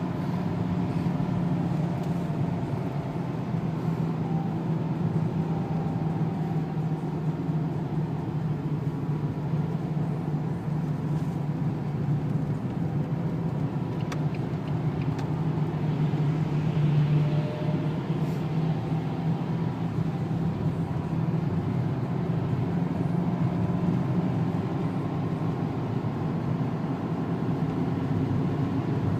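In-cabin sound of a Renault 2.0-litre turbo diesel car driven slowly on a wet track: a steady low engine drone under tyre and road noise, swelling slightly around the middle.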